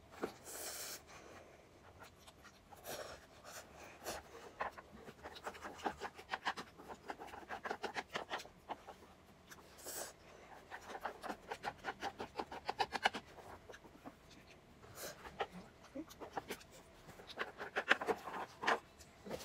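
Eating sounds: a child slurping and chewing yakisoba noodles, with wooden chopsticks scraping and tapping a plastic takeout container in several runs of quick strokes.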